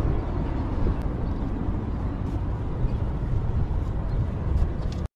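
Wind buffeting the camera's microphone: a steady, uneven low rumble. It cuts off abruptly near the end.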